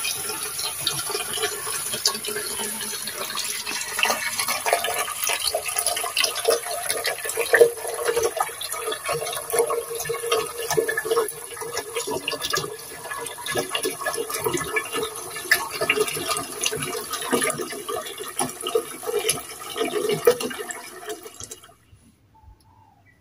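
Kitchen tap running water into a sink while vegetables are washed, with scattered knocks and clatter of a bowl and colander. It stops abruptly shortly before the end.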